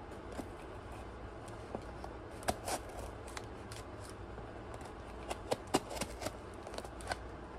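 Folding knife cutting open a cardboard shipping box: a run of small scrapes and clicks, with sharper ones about two and a half seconds in and again over the last couple of seconds.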